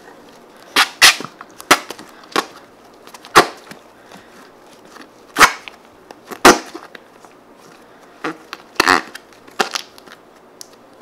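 Fluffy slime being squeezed and stuffed into a plastic bottle by hand, making a series of sharp, sticky pops and clicks at irregular intervals, about a dozen in all, loudest about a second in and again around five and a half and six and a half seconds in.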